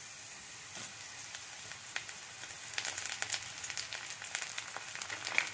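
Mustard seeds, chopped garlic and curry leaves sizzling in hot oil, a steady hiss with crackles and pops that come more often from about three seconds in.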